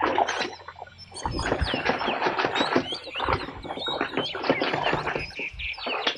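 Small birds chirping repeatedly, over a louder rough rustling noise that drops away briefly about a second in and then returns.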